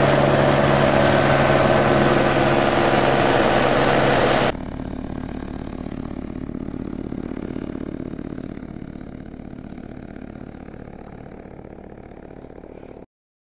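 Helicopter running loud and close, with a steady low hum. About four and a half seconds in it drops suddenly to a more distant sound that fades away as the helicopter flies off, then stops abruptly near the end.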